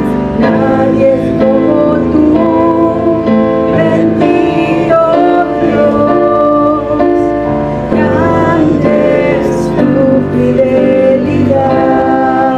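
A woman singing a worship song into a microphone, accompanied by piano-sound chords on a Roland electric keyboard.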